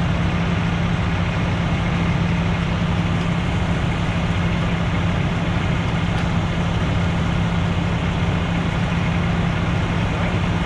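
Fire truck's diesel engine idling steadily, a deep even hum with no change in speed.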